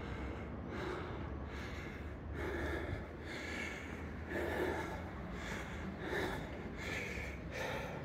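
A person breathing hard and fast close to the microphone, in and out about once a second: out of breath after climbing the bell tower's stairs.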